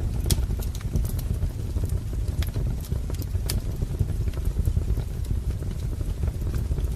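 Wood fire crackling: irregular sharp pops and snaps, a few each second, over a low steady rumble.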